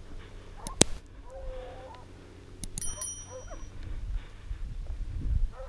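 Hunting dogs baying at a wild boar in the sugarcane, a few drawn-out pitched calls over a steady low rumble. A sharp click comes about a second in, and a short metallic ping near three seconds in.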